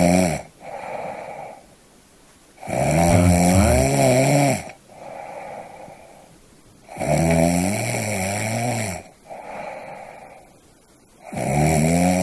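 A person snoring in a steady rhythm: a loud, rattling snore about every four seconds, each followed by a shorter, softer breath sound.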